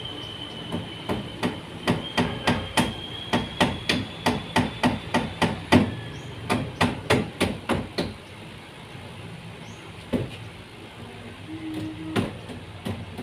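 Hammer blows on wood, a quick run of strikes at about three a second lasting some seven seconds, like nails being driven, followed by a few single knocks near the end.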